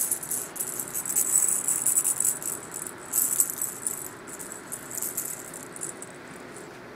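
A cat toy rattling and jingling as it is shaken in irregular bursts. The sound is louder in the first half and fades away near the end.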